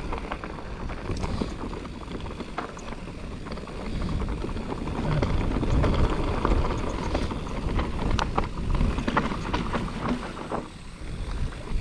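Mountain bike riding down a dirt trail: wind on the chest-mounted camera's microphone and a rumble of tyres over the ground, with sharp clicks and rattles of the bike over bumps. It grows louder about four seconds in and eases off near the end.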